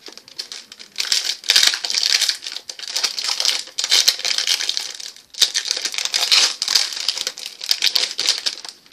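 Hockey card pack wrapper crinkling as it is torn open and handled, in two long spells of crackling with a brief break about five seconds in.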